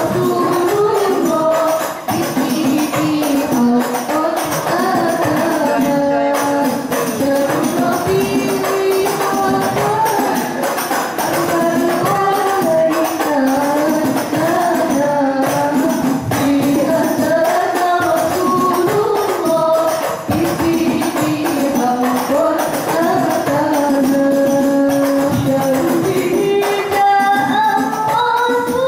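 Girls singing a sholawat song in unison into microphones, with a continuous wavering melody, over steady tambourine and frame-drum percussion.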